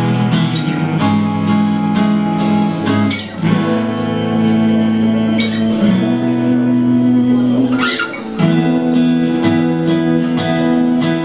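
Acoustic guitar playing chords, changing chord about every two and a half seconds, with brief breaks near three and eight seconds in.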